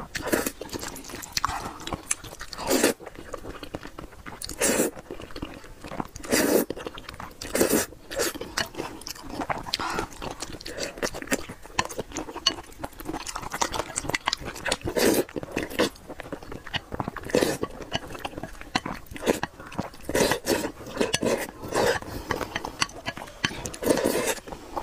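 Close-up eating sounds of a person slurping spicy noodles and chewing, with loud slurps every second or two over steady wet chewing.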